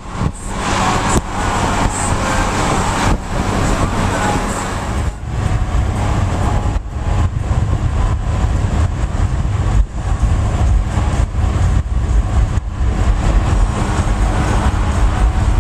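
Car travelling at highway speed: a steady low rumble of road and wind noise, broken by a few short dips.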